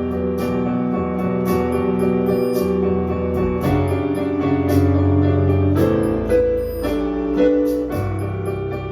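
Keyboard playing sustained chords, the harmony moving to a new chord about four, six and eight seconds in, over a light steady high tick.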